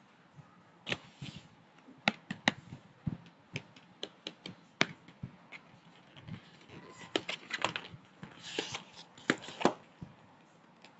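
A homemade paper blind bag, sealed with tape, being handled and opened: irregular sharp crackles and taps of stiff paper and tape, with a short stretch of rustling about eight to nine seconds in.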